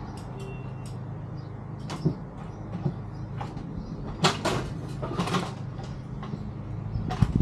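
Irregular knocks and clatters, the louder ones about four to five seconds in and near the end, over a steady low mechanical hum that fades out near the end.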